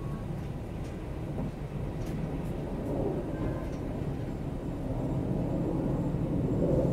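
Steady low rumble of city street traffic and idling vehicles at a busy intersection, growing louder near the end.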